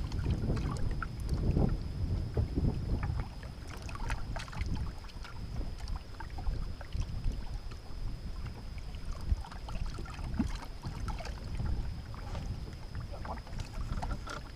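Wind buffeting the microphone in uneven gusts, heaviest in the first few seconds, with scattered small clicks and knocks and a faint steady high whine.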